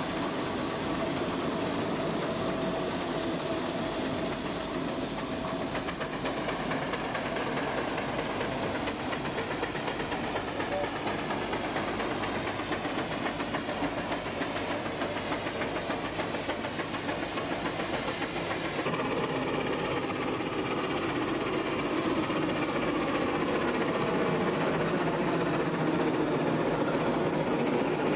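Steam traction engines working hard under a heavy haulage load: a steady run of exhaust beats with steam hissing. The sound shifts a little about two-thirds of the way through and grows slightly louder near the end.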